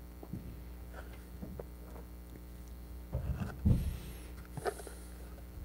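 Faint crackling and rustling of fingers picking through damp moss in a plastic tub, with a couple of dull bumps about three and a half seconds in, over a steady low hum.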